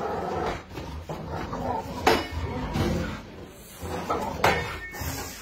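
Sharp knocks from a machete, swung in a dog's jaws, striking a board held up as a shield: two loud ones about two and a half seconds apart, with lighter knocks before them.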